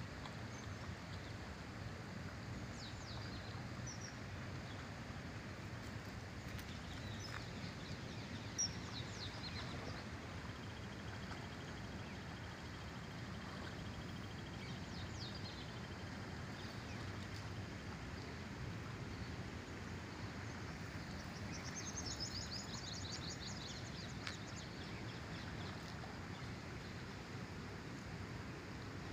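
Steady low outdoor background noise with small birds chirping now and then, including a rapid high trill about three quarters of the way in. A single sharp tick about a third of the way in.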